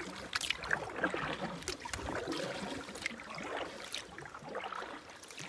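Canoe being paddled: the paddle dipping and pulling through the water, with irregular splashes and drips against a steady wash of moving water.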